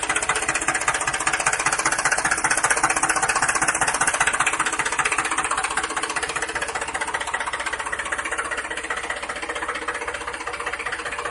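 Steady, fast-pulsing engine-like running sound as the blue toy tractor drives in pulling its trailer; it cuts off suddenly at the end.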